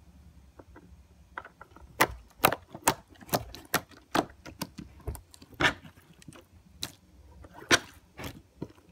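Hands squishing and digging through a thick slime with crunchy bits in it: irregular sharp pops and clicks, one or two a second, starting about a second and a half in.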